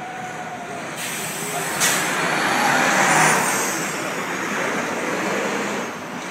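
Road vehicles pulling past close by: a minivan's tyre and engine noise swells and fades, with a short sharp air-brake hiss from a coach bus about two seconds in.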